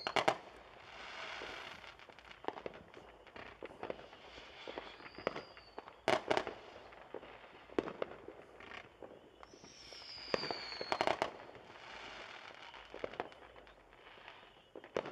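Aerial fireworks going off at a distance: a string of bangs and crackling, with the loudest reports at the start, about six seconds in and about eleven seconds in, and a short falling whistle just before the last loud burst.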